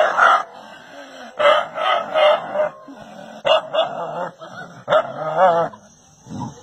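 A dog barking in short, loud bursts, about eight barks in uneven groups, one drawn-out and wavering in pitch about five seconds in.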